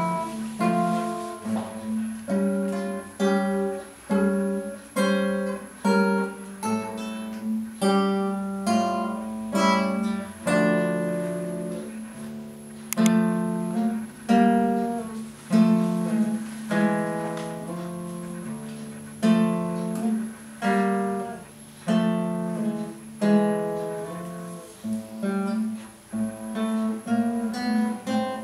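Classical nylon-string guitar played solo, fingerpicked: separate notes and chords plucked about one or two a second and left to ring over held bass notes.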